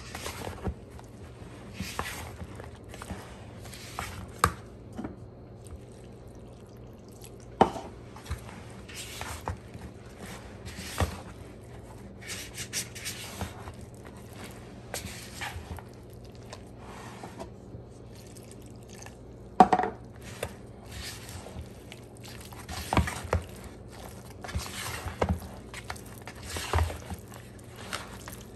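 Spatula stirring a thick, wet conch-fritter batter in a plastic bowl: irregular squelching and scraping strokes, with a few sharper knocks, the loudest about 8 and 20 seconds in.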